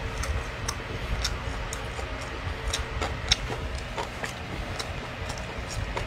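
Someone chewing food close to the microphone: irregular wet clicks and smacks, a few a second, over a low steady hum.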